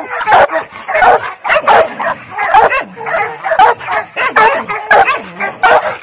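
A chained pit bull-type dog barking rapidly and aggressively, about two loud barks a second without a pause.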